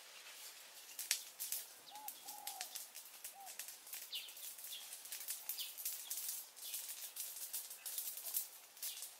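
Brush fire crackling and snapping irregularly, with a few short bird chirps and three brief arched bird calls about two to three seconds in.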